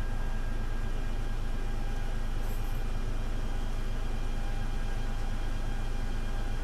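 Hino Blue Ribbon U-HU2MLAA bus's diesel engine heard from inside the bus: a steady, muffled low rumble with a constant high whine over it.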